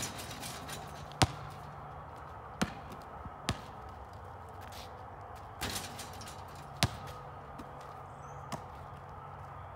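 A basketball smacking on an asphalt driveway and into players' hands, with single sharp impacts every second or two and the loudest about a second in.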